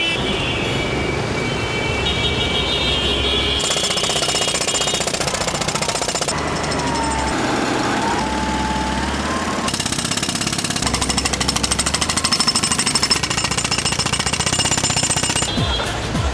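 Rapid, steady mechanical hammering mixed with music. The sound changes abruptly several times.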